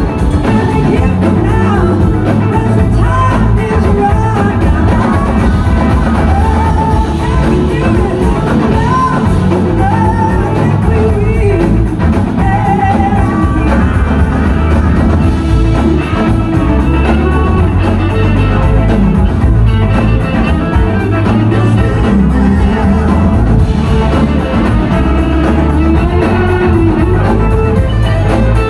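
Live rock band playing loud: a woman singing lead over electric guitars and drums.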